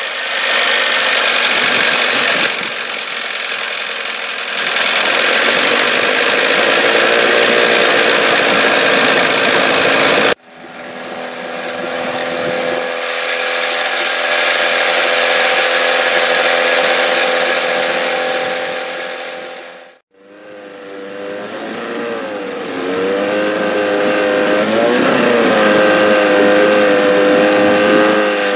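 1980s Johnson 15 hp twin-cylinder two-stroke outboard running in a test tub on its first run after sitting for years, its speed wavering up and down. The sound breaks off abruptly and resumes twice.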